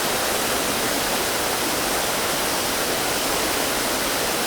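Steady rush of falling water from a small seasonal waterfall, running with a lesser flow after dry days.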